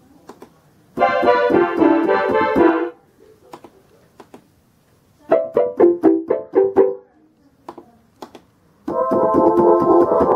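Concertmate-1000 electronic keyboard playing short test phrases on successive preset voices. A dense cluster of notes comes about a second in, then a quick run of separate notes on the Strings 3 voice in the middle, and a held chord on the Choir voice starts near the end. Faint clicks fall between the phrases.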